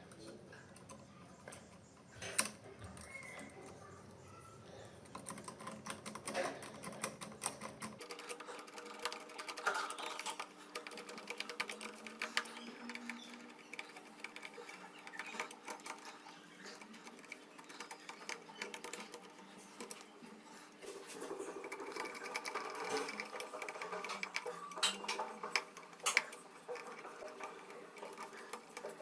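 Rapid, irregular clicking and rattling, like typing, that continues throughout and grows busier in the last third.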